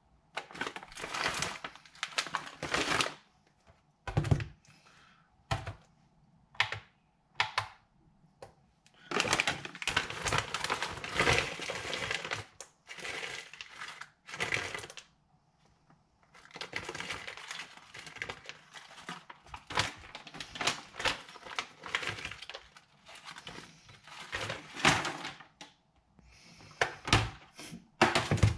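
A plastic bag of mixed berries rustling and crinkling as berries are tipped out and dropped by hand into plastic tubs of oats, making irregular clicks and taps. Busy runs of rustling and tapping alternate with a short spell of a few separate taps.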